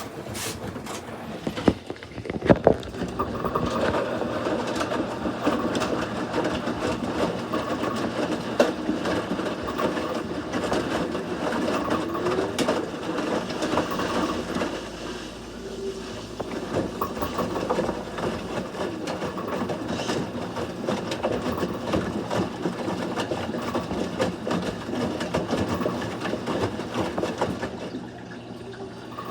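Panasonic NA-VX300BL drum-type washing machine running with a continuous harsh grinding rattle ("gari-gari"), with a few sharper knocks about two seconds in. It is an abnormal noise that has developed after two years of use.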